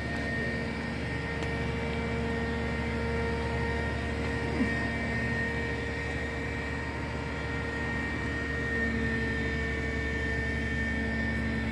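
Truck-mounted loader crane's hydraulic pump whining steadily over the low drone of the truck engine: a loud, high hum made of several even tones. One brief knock cuts through about four and a half seconds in.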